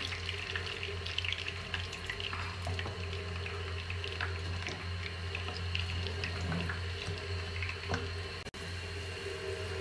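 Dried red chillies and cumin seeds sizzling and crackling in hot oil in a pan while a wooden spatula stirs them: the tadka (tempering) for dal being fried. A steady low hum runs underneath, and the sound cuts out for an instant near the end.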